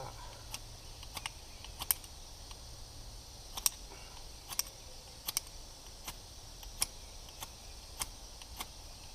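Igniter of a small camping gas stove clicking about a dozen times at uneven intervals, the burner not yet catching.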